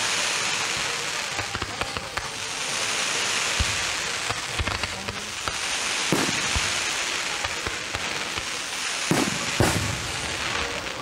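Aerial fireworks display: a dense, steady crackling hiss with several sharp bangs, two of them close together near the end.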